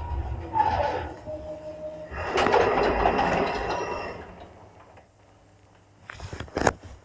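1976 SLZ passenger lift coming to a stop: its motor rumble dies away, then a loud mechanical clatter for about two seconds, like the automatic doors sliding open, and a few sharp clicks near the end.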